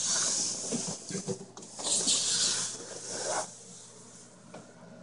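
Rubbing and scraping handling noise with a hissy edge, coming in three swells over the first three and a half seconds, then dying away.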